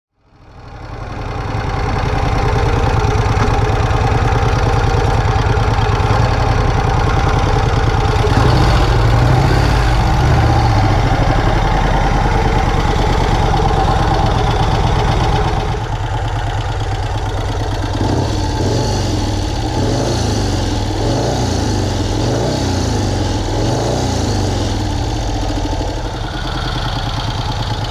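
1951 Vincent Rapide's 998 cc V-twin engine running at idle and being revved repeatedly. This is a check of its 6-volt Miller dynamo, which brightens the headlight whenever the engine is revved.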